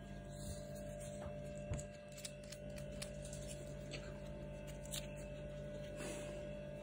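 Steady electrical hum with a constant faint tone, and a few soft scattered clicks.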